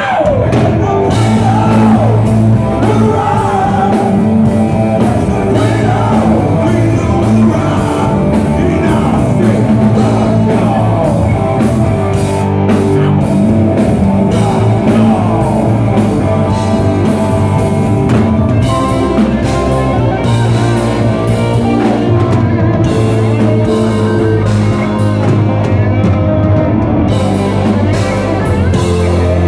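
A rock band playing live and loud: a male singer over electric guitar, keyboards, bass and drums. Near the end the band holds a low note.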